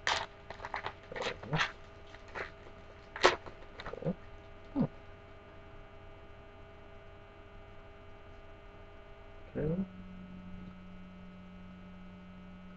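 Trading cards being handled by hand: a few short clicks and rustles over the first five seconds, then none. Under them a steady electrical hum runs on, turning into a lower, stronger hum after a brief sound about ten seconds in.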